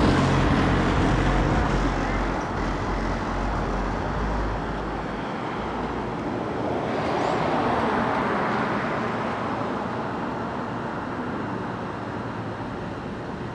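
Road traffic going by: a heavy low rumble that fades out about five seconds in, then another vehicle swelling and fading past around the middle.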